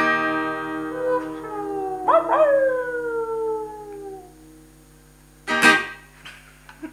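The final chord of an acoustic guitar rings out and fades while a man gives a mock dog howl. The howl starts about two seconds in and slides down in pitch for about two seconds. Near the end there is one brief loud noise.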